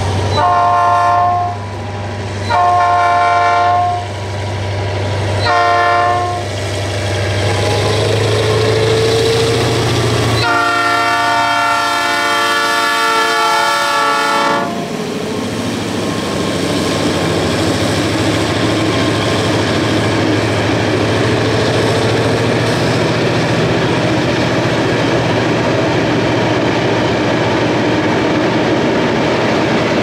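EMD G26CW diesel locomotive sounding its Nathan P3 multi-chime air horn: three blasts in the first seven seconds, then one long blast of about four seconds, over the low drone of its diesel engine. After the long blast the freight wagons roll past with a steady rumbling clatter of wheels on the rails.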